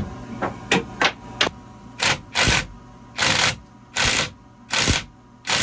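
Socket ratchet wrench tightening a fastener on an autopilot drive unit. It gives a few single clicks, then a series of short, even strokes, each backswing a quick burst of ratchet clicks, about one stroke every 0.7 seconds.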